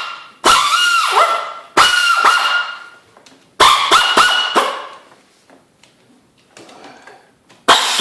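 A small handheld power wrench spinning in several short, high-pitched whining bursts, each winding down with a falling pitch, as it backs out bolts on a Kawasaki Bayou 400 ATV engine's top end. The tool is called loud.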